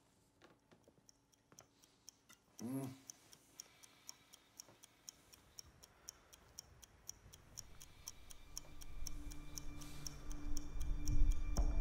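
Steady, quick clock-like ticking, even and regular. A brief low voice-like sound comes just under three seconds in, and a low drone swells in over the last few seconds.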